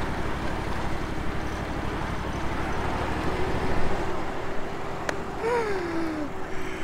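John Deere X730 riding mower's engine running steadily while the mower steers itself on GPS autosteer. There is a short falling laugh a little over halfway through.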